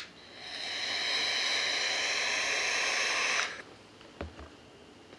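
Vape mod fired for one long draw of about three seconds: a click, then a steady hiss and sizzle of the coil and air pulled through the atomizer, cutting off sharply. A couple of faint knocks follow near the end.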